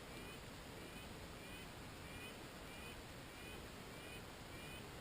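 Faint, evenly repeated short high calls, about three every two seconds, from an animal at the top of a tree: an alarm call.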